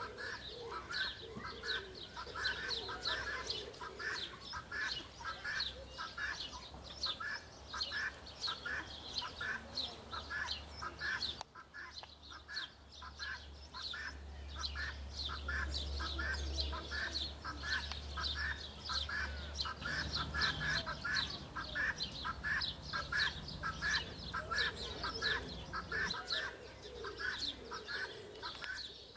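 Birds calling continuously, with short calls repeated several times a second, and a low rumble in the middle.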